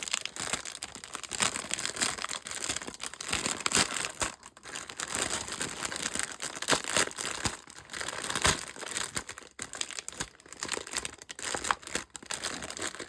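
Packaging rustling and crinkling as it is handled and worked open by hand, in dense, irregular crackles.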